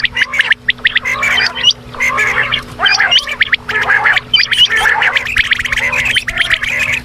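Quail calling: a dense, unbroken chatter of many overlapping rapid clicking and chirping calls, over a steady low hum.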